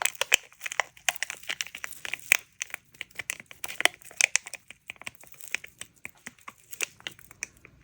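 Hands handling resin-crafting supplies while filling a mold: irregular crinkly clicks and light taps, many small ones in quick succession.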